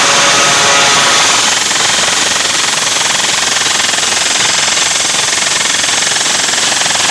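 DJ sound system blasting at competition volume, so loud that the recording overloads into a harsh, dense, distorted roar with no clear beat.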